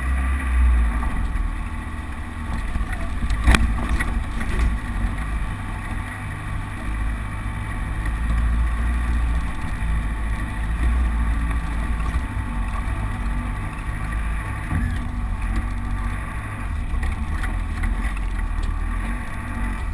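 Land Rover Defender engine running at low revs as it crawls along a rough, muddy off-road lane, a steady low drone with a sharp knock about three and a half seconds in.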